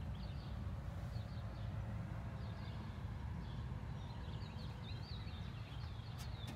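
Small birds chirping and twittering over a low, steady rumble, with a sharp click near the end.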